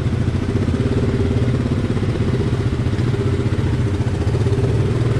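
ATV engine running steadily, close up, with an even pitch throughout.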